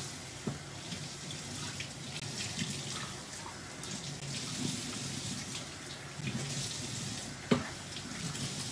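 Kitchen tap running into the sink while dishes are washed by hand, with a few light clinks of dishware and one sharper knock about seven and a half seconds in.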